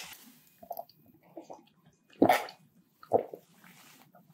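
Close-up gulps of a drink swallowed from a glass, two loud ones about two and three seconds in, after a few faint mouth sounds.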